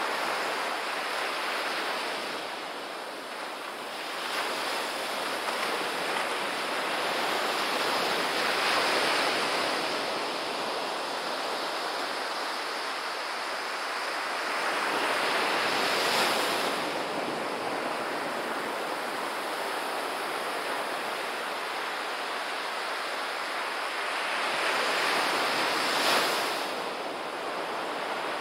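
Small ocean waves breaking and washing up a sandy beach: a steady rush of surf that swells three times as waves break, the sharpest near the end.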